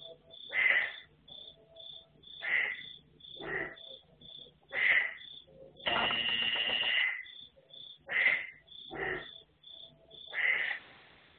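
An insect, likely a cricket, chirping in a steady, even rhythm of high pulses, over loud short animal calls that repeat roughly once a second. One longer, louder call comes about six seconds in.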